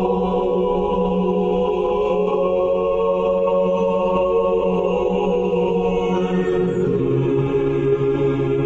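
Orthodox church choir singing a cappella in long held chords; the chord changes about seven seconds in, the bass moving down to a lower note.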